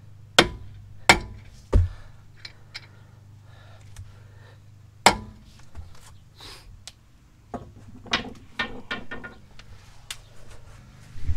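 Steel mini sledgehammer striking the end of a Honda Ridgeline's front CV axle to drive the axle shaft back out through the wheel hub: three hard blows in the first two seconds and a fourth about five seconds in, then lighter knocks and clatter near the end.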